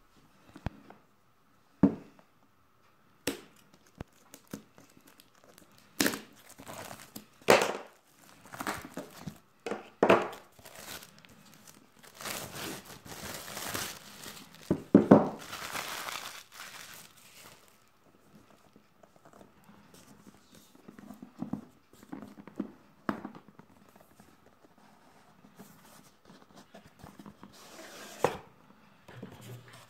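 Plastic shrink-wrap being slit and peeled off a boxed product: a few sharp clicks, then crinkling and tearing in bursts, loudest around the middle, with quieter handling rustles after.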